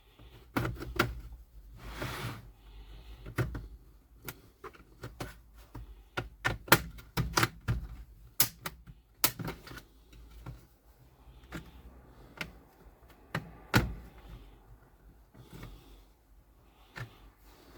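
Plastic snap-fit clips of an Acer Aspire E5-573's bottom case clicking loose as the shell is pried off by hand: irregular sharp clicks, with a short scrape about two seconds in.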